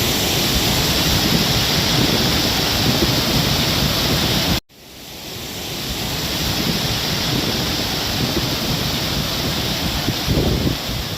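Waterfall rushing: a steady, loud wash of falling water. It cuts out abruptly a little under halfway through and fades back in over about a second.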